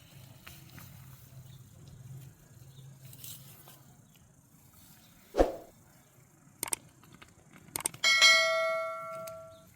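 Metal cookware knocked about halfway through, a light click, then struck near the end so it rings with a bell-like tone that fades over about a second and a half.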